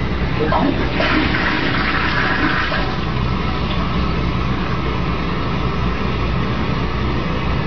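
Toilet flushing, set off by a cat pawing the flush handle: a louder rush of water about a second in, then water running steadily.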